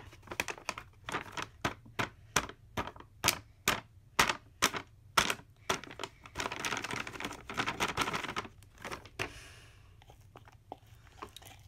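A cardboard baking soda box being tapped and knocked over a bowl to shake out the last bits of powder: a quick run of sharp taps for about five seconds. Then the cardboard crinkles as it is squeezed, and the sound fades to faint near the end.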